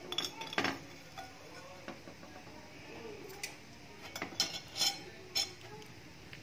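Metal spoon clinking and scraping on china and cookware: scattered sharp clinks, a few near the start and a quicker run of them about four to five seconds in.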